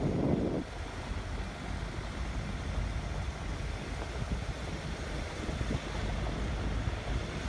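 Wind buffeting the phone's microphone as a steady, uneven low rumble, with a stronger gust in the first half second.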